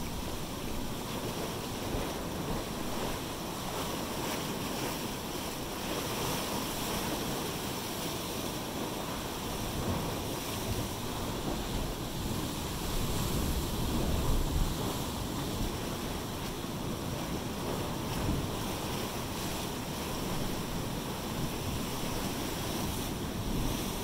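Pacific surf breaking and washing over basalt rocks, foaming through a rocky channel: a steady rushing wash that swells a little about halfway through.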